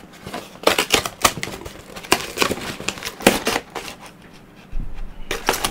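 Cardboard box being slit and torn open with a utility knife: a run of irregular sharp scrapes, rips and crinkles of cardboard.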